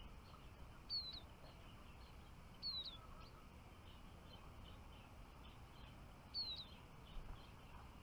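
Small songbirds chirping: three short, high calls, each a quick downward sweep, about a second in, near three seconds and just past six seconds, with softer chirps between them over faint outdoor background noise.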